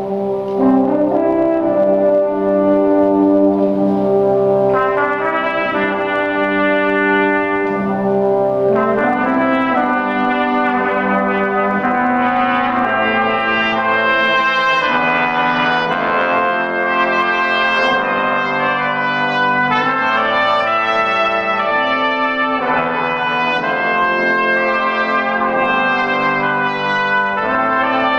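A brass ensemble of two trumpets, French horn and trombone playing a piece in held chords, with higher trumpet lines coming in a few seconds in.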